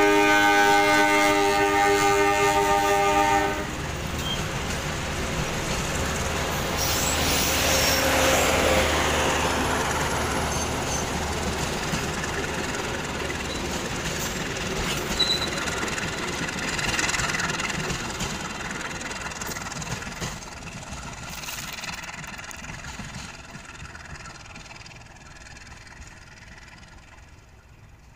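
CC 201 diesel locomotive's horn sounding a steady multi-note chord that stops about three and a half seconds in. It is followed by the rumble and wheel clatter of its passenger coaches passing, which fades steadily as the train moves away.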